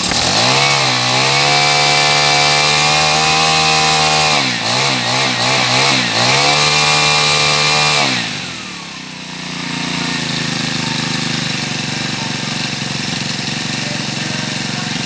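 Robin BH-K3500 four-stroke backpack brush cutter engine revving up and holding at high speed, with a few quick throttle blips about halfway through, then dropping back to a steady idle about eight seconds in.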